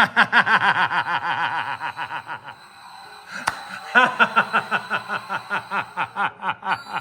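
A man laughing hard in two long fits of rapid, rhythmic laughter, with a pause of about a second and a half in the middle.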